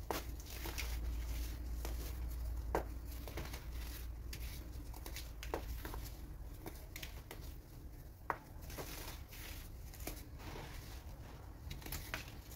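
Hands crushing and crumbling chunks of pressed baking soda into loose powder: irregular soft crunches and crackles, with a few sharper snaps as pieces break.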